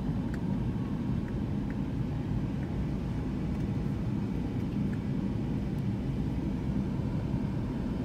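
Steady low rumble of a car driving along a city street: road and wind noise from the moving vehicle, with other traffic alongside.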